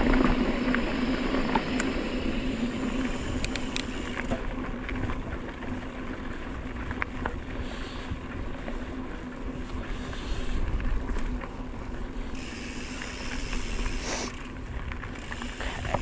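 Wind buffeting the microphone and mountain bike tyres rolling over a dirt fire road on a downhill, with a few light clicks and rattles from the bike.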